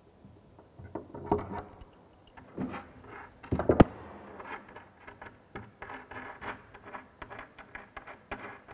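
Metal clicks and clinks of a steel spanner and nuts as the nuts are taken off wall-mounted basin bolts. The sharpest click, about four seconds in, is the loudest, and a run of lighter clicks follows.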